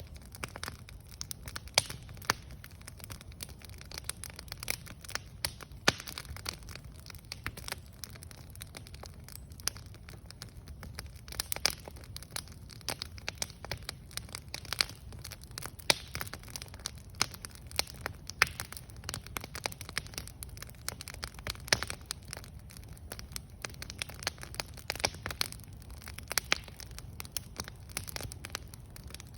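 Wood campfire burning, crackling with sharp pops at irregular intervals over a low steady rumble.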